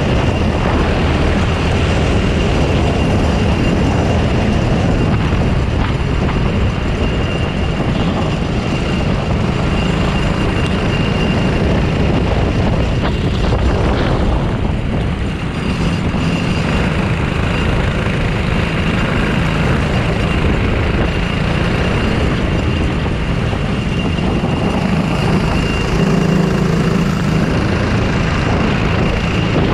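Racing kart engine running hard with heavy wind and track noise, the engine note easing briefly about halfway through.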